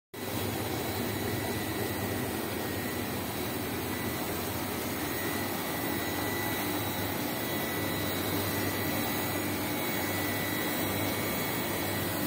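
Single-phase ice plant's refrigeration compressor unit running, a steady whirring noise over a low electrical hum that does not change. It cuts in abruptly at the start.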